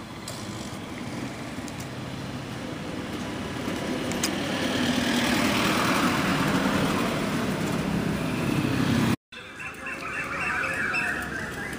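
Background road-traffic noise that builds over several seconds, then cuts off abruptly at an edit, after which a quieter background with a few faint high chirps follows.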